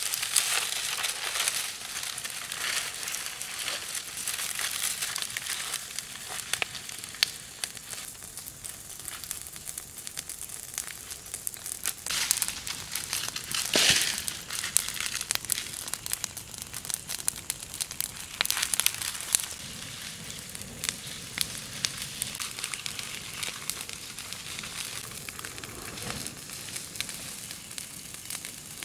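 Open wood fire crackling and sizzling under a leaf-wrapped parcel, the scorching leaves popping with many sharp crackles over a steady hiss. A loud burst of crackling comes about halfway through.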